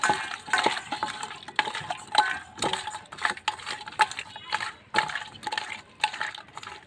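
Hand mixing whole climbing perch fish in a stainless steel bowl: fish and fingers knock against the bowl at an irregular pace, about one to two knocks a second, and each knock sets the steel ringing briefly. Wet sloshing sounds come between the knocks.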